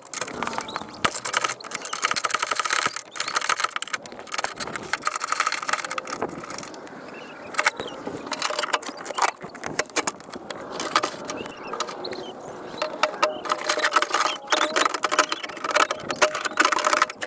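Hand work on a truck door's latch mechanism: metal parts rattling and clicking, with runs of rapid clicking.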